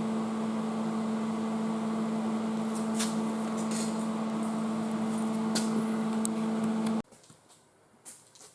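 A steady electrical machine hum with scattered sharp crackles and clicks over it from about three seconds in. It cuts off abruptly about seven seconds in, leaving only faint clicks.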